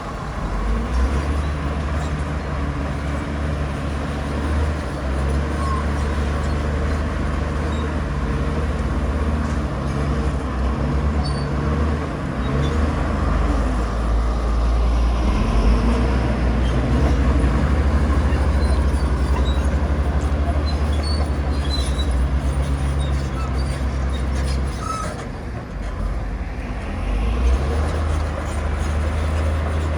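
Heavy diesel earthmoving machinery running steadily under load, with a deep engine drone; the engine note dips briefly about 25 seconds in, then picks up again.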